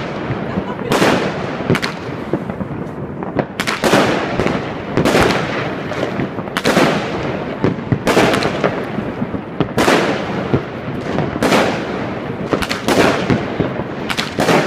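Aerial fireworks exploding overhead: a bang about every second or second and a half, each one trailing off before the next.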